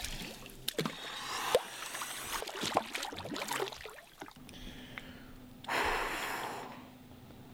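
Water sloshing and splashing in a hot tub as a person settles in. About six seconds in there is one long, breathy, contented sigh.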